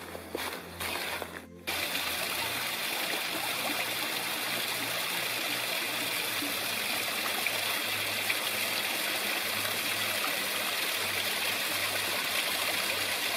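Big Creek, a mountain stream, flowing with a steady rush of water that starts abruptly about a second and a half in. Before it, a few footsteps on the trail.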